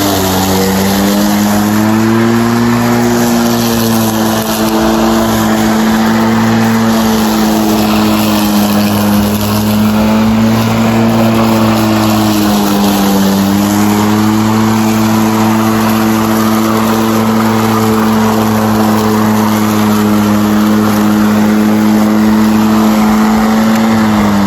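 Greenworks Pro 80V cordless electric lawn mower's motor and blade spinning with a steady hum, the pitch sagging briefly a few times under load in tall grass. Right at the end the pitch falls away as the motor starts to wind down.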